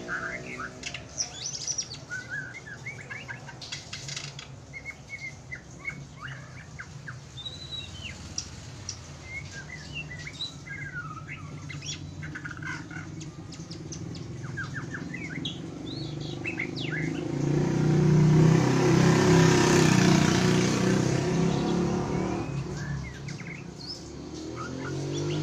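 Oriental magpie-robin (kacer) singing: a busy string of short chirps and whistled notes. About two thirds of the way through, a louder rushing noise swells up and fades again over several seconds, covering the song for a while.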